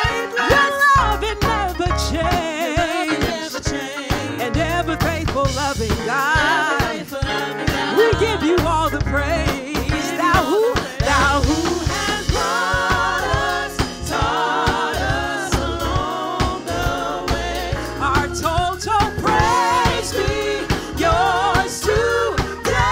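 Women singing an upbeat gospel praise song into microphones, with wavering, ornamented vocal lines over instrumental backing with a steady beat.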